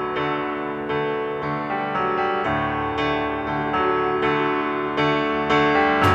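Background music: a piano melody with a steady run of notes.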